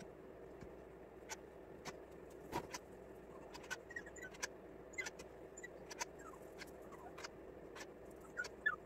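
Faint, scattered clicks and light taps of a spoon against a metal cookie sheet as small mounds of choux-type dough are dropped in rows, with a few small squeaks, over a low steady hum.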